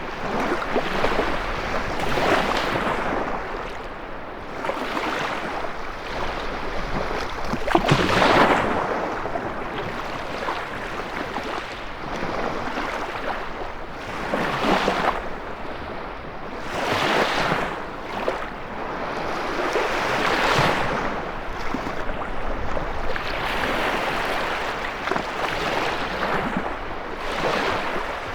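Lake waves surging and breaking on the shore one after another, each swell rising and falling over a few seconds. Wind blows through in a storm. The loudest wave breaks about eight seconds in.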